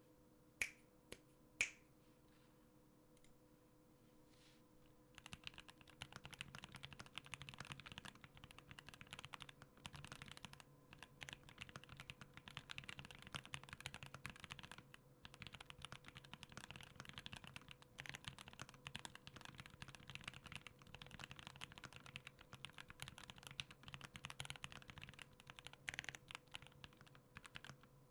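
Typing on a Tiger80 aluminium-case custom mechanical keyboard with Gateron Oil King linear switches and case foam. Two single key presses come about half a second and a second and a half in, then steady fast typing from about five seconds on.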